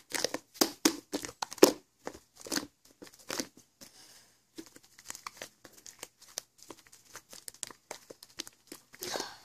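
Homemade slime being squeezed and stretched by hand, giving a string of short, irregular pops and crackles that are louder in the first few seconds and fainter after.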